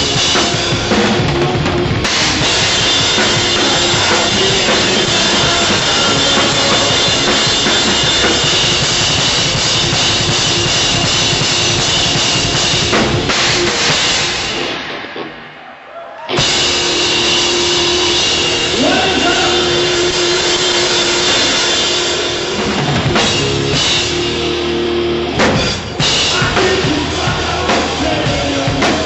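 Rock drumming on a Tama drum kit, bass drum and snare under constantly ringing cymbals, with the band playing along. The sound drops away briefly about halfway through, then starts again.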